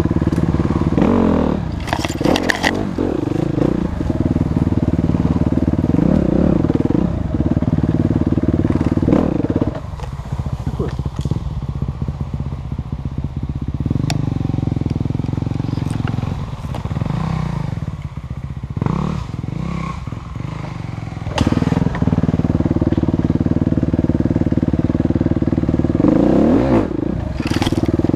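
Enduro motorcycle engine heard close up from the riding bike, revving and pulling hard over rough forest track. About ten seconds in, the throttle eases off and the engine runs lower and quieter for roughly ten seconds, then opens up again. Scattered clicks and rattles come over it.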